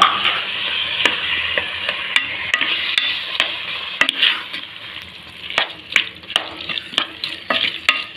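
Mixed vegetables in spice masala sizzling in a pot while a spoon stirs them, scraping and knocking against the pot many times. The sizzle grows fainter about halfway through.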